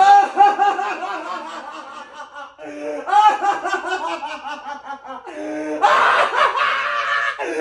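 A person laughing in quick repeated bursts, in two runs, with a louder, rougher stretch of laughter near the end.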